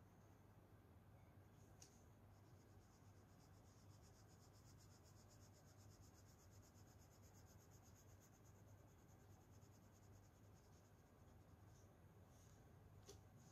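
Faint, quick back-and-forth strokes of colouring on paper, several a second, shading in a drawing, with a light tick about two seconds in and another near the end.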